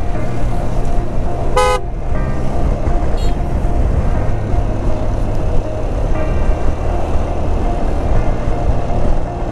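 Steady riding noise from a Yamaha XMAX scooter: engine drone with wind and road noise. A vehicle horn gives one short toot about one and a half seconds in, with a fainter short toot shortly after.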